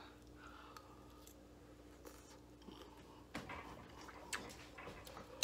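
Faint chewing of a mouthful of tuna noodle casserole topped with crushed potato chips, with a few soft crunches.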